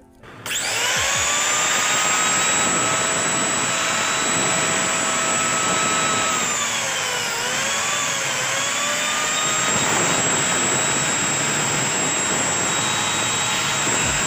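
A Cumi CPAG 4 1200 W angle grinder's brushed universal motor, run without its gear head, starts about half a second in and runs at steady high speed with a high-pitched whine. The pitch dips briefly twice near the middle. It runs at full speed without the earlier slowness, showing the repaired armature is working.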